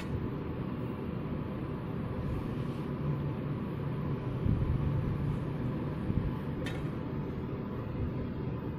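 Steady low background rumble with no distinct event, apart from one faint tick near the end.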